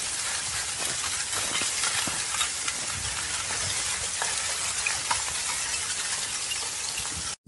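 Lava flow crackling and hissing: a steady sizzling noise with many small crisp cracks as the glowing crust moves and breaks. It cuts off abruptly near the end.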